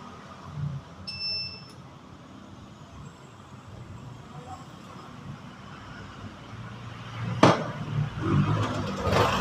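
Bristol ATR 160 motorcycle engine running at a low idle, with a short electronic beep about a second in. A sharp click comes about seven seconds in, and then the engine is revved louder near the end.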